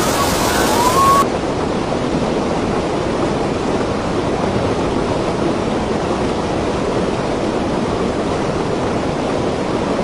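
Fast-flowing water rushing across a road, a steady roar of water noise. A faint rising whistle-like tone sounds in the first second.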